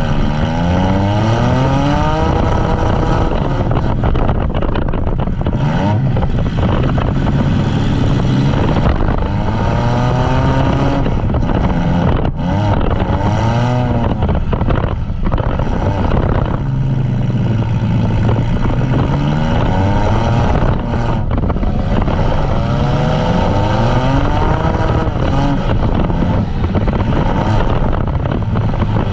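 Several demolition derby vans' engines revving up and falling back again and again, overlapping.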